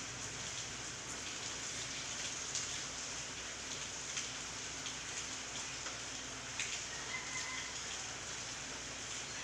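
Steady typhoon rain falling on garden leaves: an even hiss with a few louder drop ticks.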